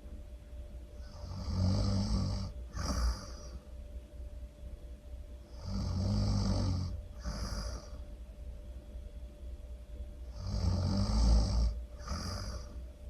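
A person snoring loudly in a slow, even rhythm: three snores about four and a half seconds apart. Each is a long snore followed by a shorter, airier breath.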